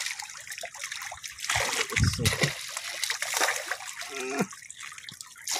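Water splashing and splattering as groupers thrash at the surface of a crowded net pen, in irregular surges.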